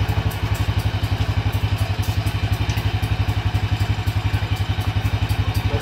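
SYM Bonus X underbone motorcycle's single-cylinder four-stroke engine idling steadily, an even rapid beat of about a dozen pulses a second.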